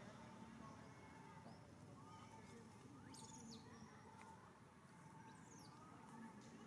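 Near silence: faint outdoor ambience with a few brief, faint high chirps, about three seconds in and again near the end.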